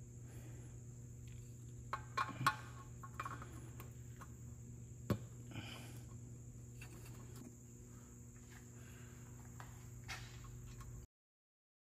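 Faint light clicks and knocks of hand tools and bolts as the DCT filter housing bolts are fitted, a cluster about two seconds in and a sharper single knock around five seconds, over a steady high-pitched whine and low hum. The sound cuts off suddenly near the end.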